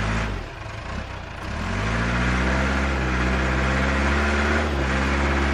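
Deep engine-like running sound of a toy RC excavator, rising in pitch about a second and a half in and then holding steady.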